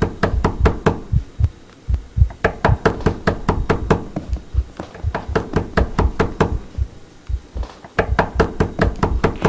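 Knocking on a door: rapid, heavy knocks, about five a second, in four long runs with short pauses between.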